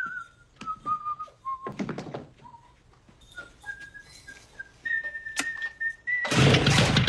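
A person whistling a simple tune, its notes stepping down in pitch and then climbing back up, with a few knocks along the way. About six seconds in, a chainsaw starts and runs loudly.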